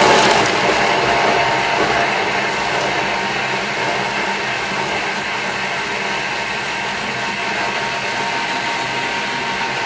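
Thermomix running at speed 6, its blades chopping a packed bowl of vegetables and herbs into stock paste. It is a loud, steady whirring that starts abruptly and holds level throughout.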